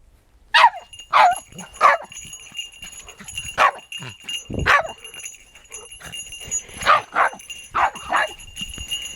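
Dogs barking in play, about nine short barks, over the steady jingling of a small bell on a dog's collar. The bell is worn by a deaf dog so that she can be located.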